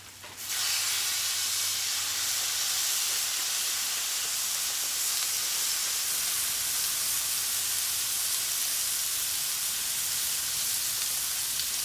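Marinated chicken breast pieces hitting a hot Blackstone flat-top griddle, breaking into a sudden, steady sizzle about half a second in that keeps going as more chicken goes down.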